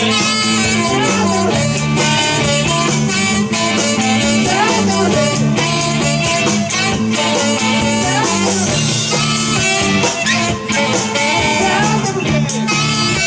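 Live band playing a rock number with electric guitar, saxophones and drums, amplified through stage speakers.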